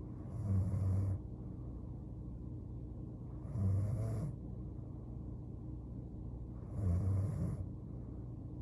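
A young woman snoring in her sleep: three snores about three seconds apart, each a short, low, rattly buzz on the in-breath with a breathy hiss, over a steady low hum.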